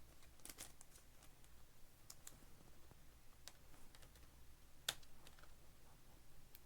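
Near silence with faint scattered clicks and light taps, one sharper click about five seconds in.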